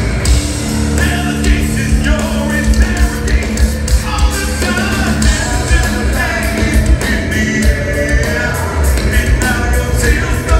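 Live progressive metal band playing loud: a male singer sings over electric guitar, bass guitar and drums, with fast, steady drum and cymbal strokes all through.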